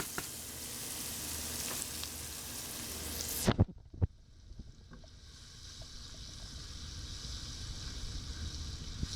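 Chopped bell pepper, celery and onion sizzling in hot frying oil in a skillet. About three and a half seconds in the loud sizzle drops away suddenly with a couple of sharp knocks, then a fainter sizzle goes on.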